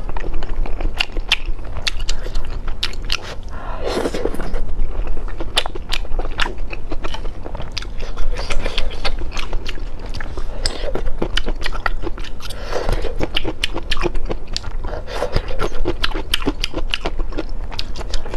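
Close-miked chewing and mouth sounds of someone eating from a bowl of spicy soup with chopsticks: wet chewing with many sharp smacking clicks, and a short louder swell of noise about four seconds in.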